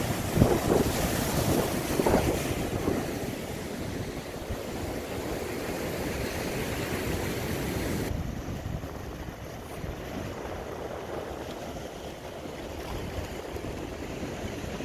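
Strong wind and sea waves: gusts buffet the microphone, loudest in the first three seconds. About eight seconds in the sound turns abruptly duller and quieter.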